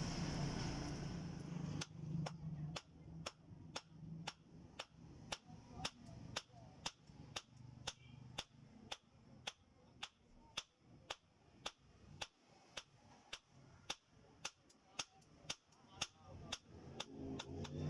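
Hand hammer striking hot steel on an anvil, forging a knife blade, in a steady rhythm of about two to three sharp blows a second. A steady machine noise with a low hum runs at the start and cuts off about two seconds in, before the hammering begins.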